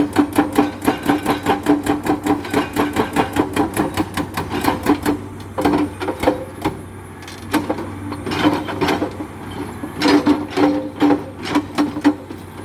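Hydraulic rock breaker on an excavator hammering limestone: a fast, even run of metallic strikes, several a second, over the machine's steady hum. The strikes stop briefly near the middle, then resume.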